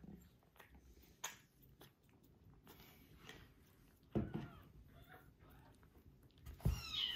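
Kittens lapping milk from ceramic bowls: soft, scattered wet licking clicks. A short low sound comes about four seconds in, and a kitten mews with a high, falling cry near the end.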